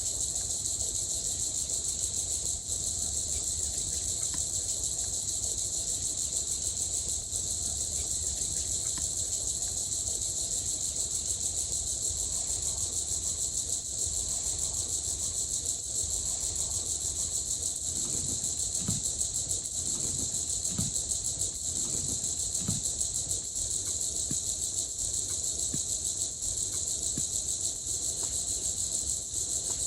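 A steady, high-pitched chorus of night insects such as crickets, over a low rumble. About two-thirds of the way through, a few faint low pulses come roughly a second apart.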